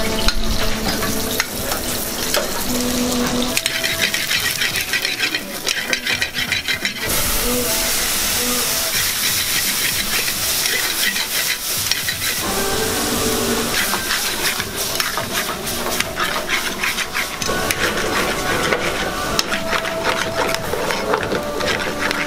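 Mushrooms and a curry sauce sizzling in metal pans over gas burners, stirred with a metal spoon.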